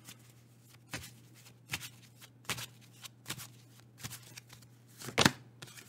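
A deck of astrology oracle cards shuffled by hand: short soft slaps and rustles about every three-quarters of a second, the loudest near the end.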